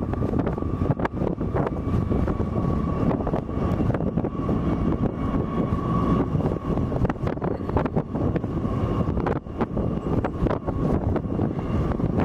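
Boeing B-52 bomber's eight jet engines running during start-up: a steady whine over a deep, continuous rumble, with irregular wind buffeting on the microphone.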